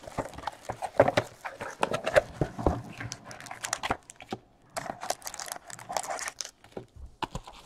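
Cardboard trading card box and its packaging being handled and opened: a run of rustling, crinkling and sharp little taps and scrapes.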